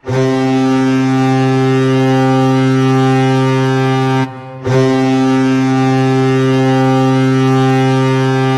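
Hockey arena goal horn blowing two long, steady blasts of about four seconds each, with a short break between them.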